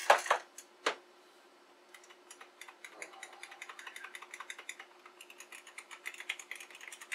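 IBM Model M buckling-spring keyboard set down on a wooden desk with a couple of sharp knocks, then typed on in a rapid run of clicky keystrokes from about two seconds in. A faint steady hum sits underneath.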